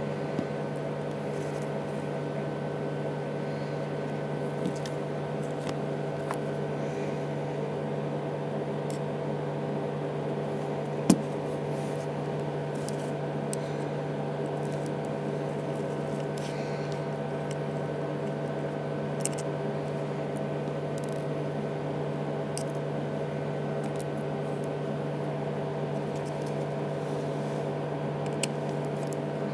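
A steady machine hum with several fixed tones, over which small tools and parts make occasional light clicks and taps while an iPhone 3GS is taken apart, one sharper click about eleven seconds in.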